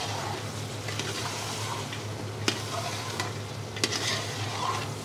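Lamb shank pieces, tomatoes and garlic sizzling in sesame oil in a large metal pot while a metal spoon stirs them, with a few sharp clinks of the spoon against the pot about halfway through.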